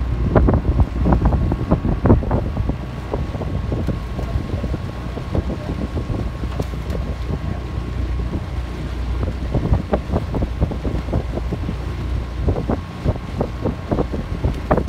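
Wind buffeting the microphone over the steady low rumble of a motorboat running, with a faint steady whine.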